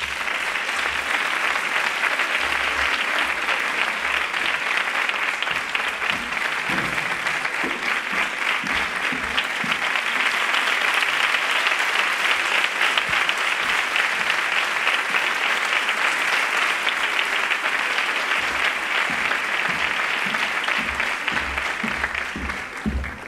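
Audience applauding: a long, steady round of clapping that dies away near the end.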